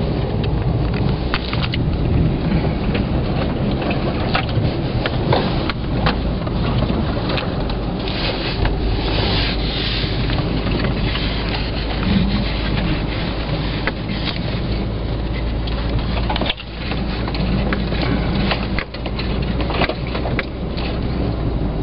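A Hyundai Santa Fe driving over a rough, snowy trail, heard from inside the cabin: a steady low drone from the engine and tyres, with frequent knocks and crunches. The noise dips briefly about 16 seconds in and again near 19.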